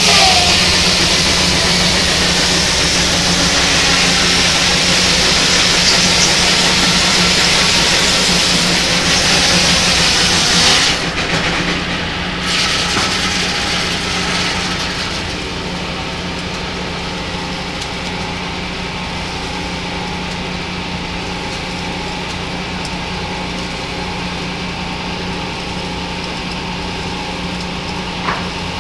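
Large circular saw blade of a steam-powered sawmill cutting through a log, a loud hissing whine for about the first eleven seconds. As the cut ends the sound falls away to the blade and mill machinery running free with a steady hum.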